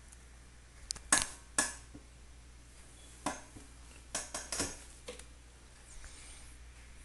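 Sharp glassy clinks against a cut-crystal bowl of ice water: two close together about a second in, one in the middle, then a quick run of three and a last fainter one.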